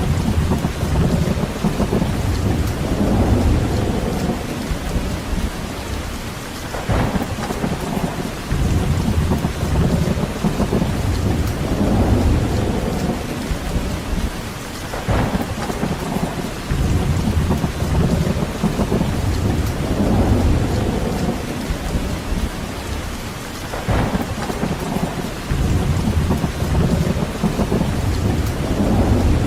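Steady rain, with a deep rumbling that swells and fades every few seconds. A few sharp ticks come through, spaced several seconds apart.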